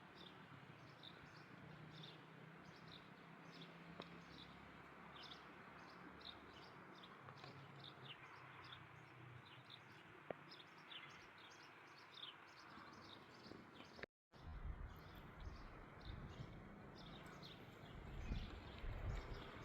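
Birds chirping in short, quick repeated calls over a faint outdoor background. A brief dropout about two-thirds through, then irregular low rumbling and thuds near the end.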